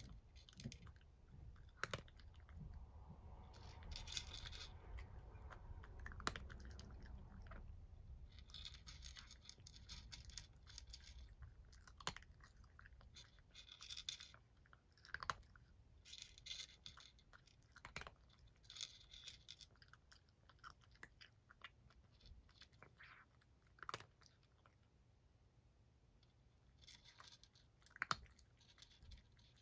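A cat crunching dry kibble: faint, irregular crisp crunches and clicks, coming in spells of chewing.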